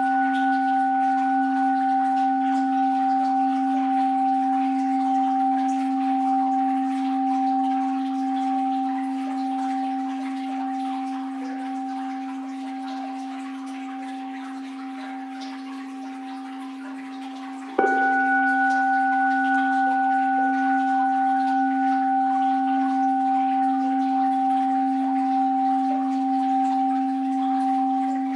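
An orin, a Japanese Buddhist bowl bell, ringing with a low steady hum and higher overtones that slowly fade; it is struck again about 18 seconds in and rings on.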